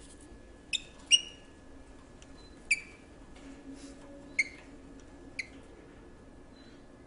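A small caged bird chirping: five short, sharp, high chirps spaced irregularly over about five seconds, with a faint steady hum behind them.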